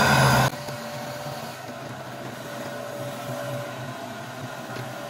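Canister vacuum cleaner running: loud at first, then from about half a second in a quieter, steady motor hum with a faint whine, as the floor head is pushed over a concrete floor.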